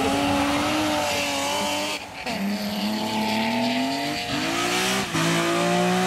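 BMW E36 3 Series rally car at full throttle on a loose gravel stage, its engine note climbing and dropping back at gear changes about two seconds in, near five seconds and near the end. A steady hiss of tyres and gravel runs under the engine.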